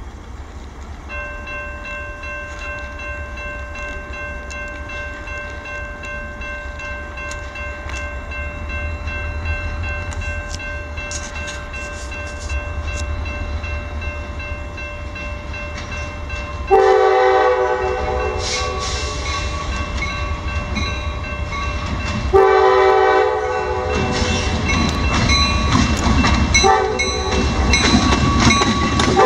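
Diesel freight locomotives, an EMD GP40-2 leading a GP38-2S, rumbling as they approach at low speed. About two-thirds of the way in, the lead locomotive's air horn starts sounding for a grade crossing: three long blasts of several seconds each, the last one still going at the end.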